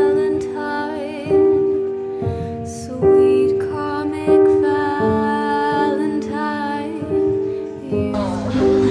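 Background music: a slow, gentle melody of held notes that change about once a second.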